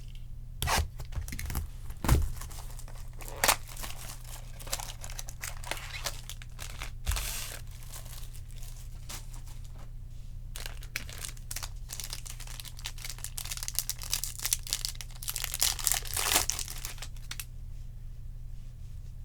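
Trading card packaging being torn open and crinkled by hand: foil and plastic wrappers tearing and rustling, with several sharp knocks in the first few seconds. The tearing and crinkling is densest in the second half and dies down near the end, over a steady low hum.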